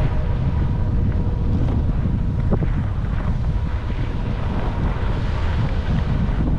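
Wind buffeting the microphone: a loud, steady low rumble with no speech.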